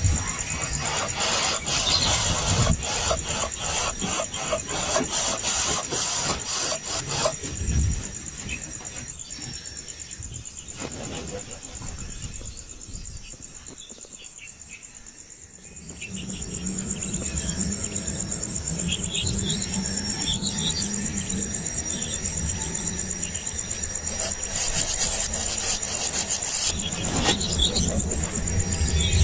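Steady high-pitched trilling of insects, crickets or cicadas. It is overlaid by a dense run of scraping, rustling clicks for the first several seconds and again near the end, and is quieter in the middle.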